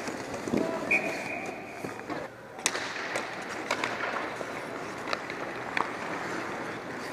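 Ice hockey play close to the net: skates scraping and carving on the ice, with several sharp clacks of sticks and puck, and players' voices.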